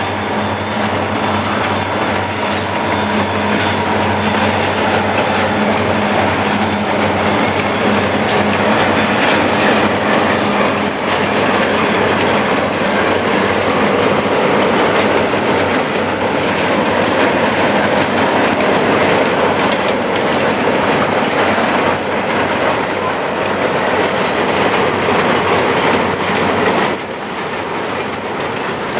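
Freight train rolling steadily across a railway bridge: a continuous rumble of wheels on rail with a clickety-clack from the rail joints. The sound drops in loudness a little near the end.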